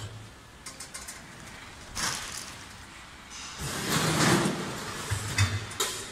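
Automatic weighing and bagging machine at work: sharp mechanical knocks and clicks, with a louder noisy rush lasting about a second, about four seconds in.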